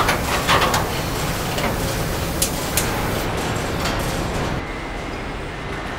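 Car assembly line noise: a steady machinery din with scattered sharp metallic clicks and clanks. It drops to a softer hum about four and a half seconds in.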